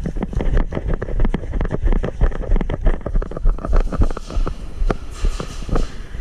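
Wind buffeting the microphone with a pulsing low rumble, over many irregular sharp knocks and clatters, several a second.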